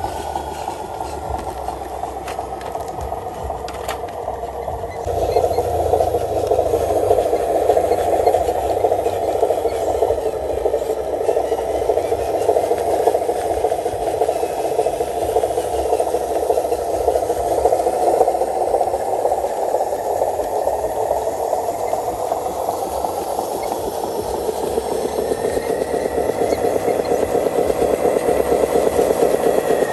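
Radio-controlled truck driving while towing a loaded dump trailer over rough concrete. Its drive runs with a steady mechanical sound, and the wheels and chassis rattle and scrape. The sound gets louder about five seconds in.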